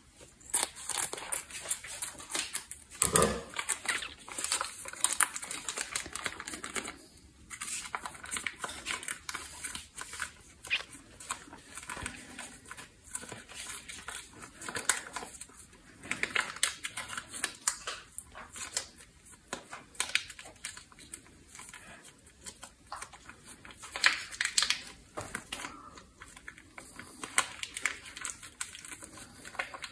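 Foil sauce pouch crinkling and crackling while hands squeeze it out over a pot, with a steady patter of small irregular clicks and a few louder bursts of crinkling.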